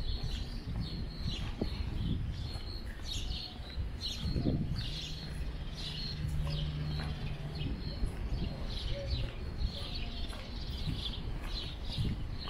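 Birds chirping, many short high calls repeated again and again, over a steady low rumble of outdoor background noise. A faint low hum comes and goes near the middle.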